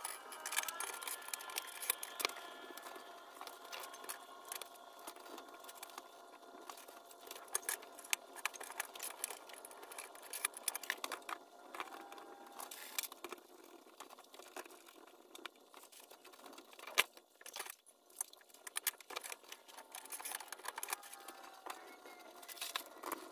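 Scattered light clicks, taps and scrapes as large wall tiles are pressed into place and plastic tile spacers and leveling knobs are fitted, fairly quiet, over a faint steady whine.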